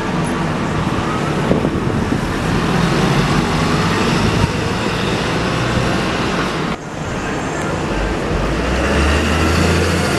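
City street traffic dominated by buses: a hybrid double-decker bus passes close and pulls away, its engine and tyres loud. After a break about two-thirds of the way in, a single-decker bus's engine runs with a deeper hum as it turns.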